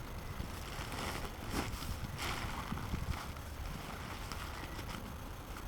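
Faint rustling and scuffing of a tent's fabric as it is pushed and packed into its carry bag, a few short brushes of noise over a low rumble of wind on the microphone.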